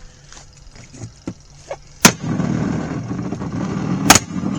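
Firecrackers exploding inside a running RV washing machine: two sharp bangs about two seconds apart, the first one setting off a loud steady rumble that continues under the second.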